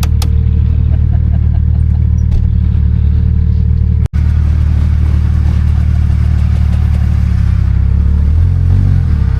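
A 4x4's engine running at a steady speed, then revving up and down over the last second or so. The sound cuts out briefly just after four seconds in.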